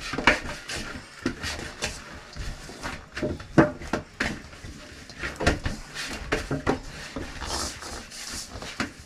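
Chapati dough being kneaded by hand in a stainless steel basin: irregular thumps and slaps as the dough is pressed and pushed around the metal bowl.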